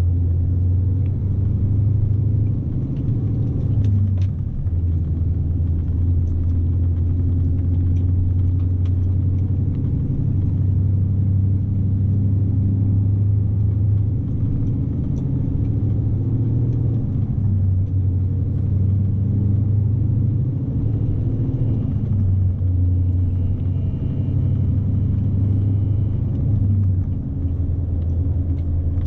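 Scania S520 truck's V8 diesel engine running under load, a steady low drone heard inside the cab with road rumble. The drone drops briefly twice, about four seconds in and near the end.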